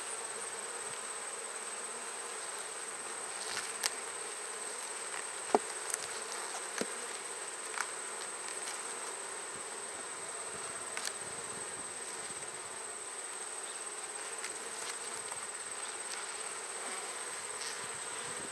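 Honey bees buzzing steadily in a crowd around an opened hive, with a few light clicks and knocks scattered through.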